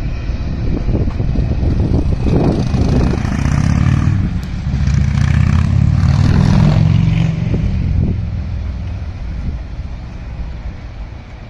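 Road traffic: cars and SUVs pulling away over a railroad grade crossing as the gates lift, with a low rumble. It is loudest as a vehicle passes close by about six seconds in, then fades.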